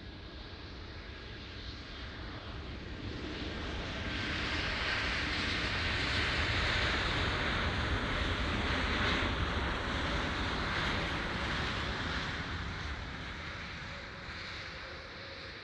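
Airbus A321neo jet airliner rolling along the runway after landing, its engine noise swelling as it passes close by and then fading.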